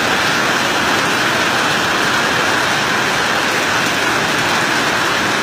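Heavy rain and muddy floodwater rushing down a road: a loud, steady rush of water that holds even throughout.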